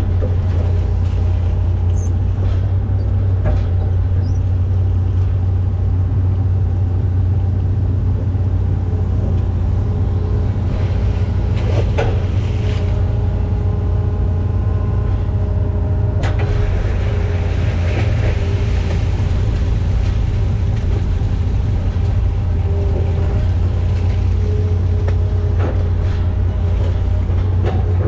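Hitachi ZX210F-5G excavator's diesel engine running steadily at working speed, heard from inside the operator's cab, a deep hum with a steady whine over it as the hydraulics work the arm and bucket. A couple of sharp clunks, about twelve and sixteen seconds in.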